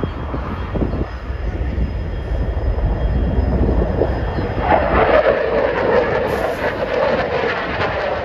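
Fighter jet flying overhead, its engine noise a loud, continuous rushing rumble that grows harsher about halfway through, then eases slightly lower in pitch.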